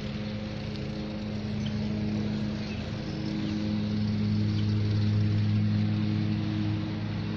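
A motor engine running steadily with a low droning hum, growing louder about halfway through.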